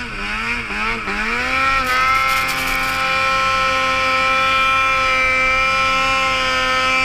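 Ski-Doo Gen 4 850 two-stroke twin snowmobile engine with an RK Tek big-bore kit, pulling hard through deep powder. The revs dip and waver for the first couple of seconds, then climb and hold at a steady high pitch.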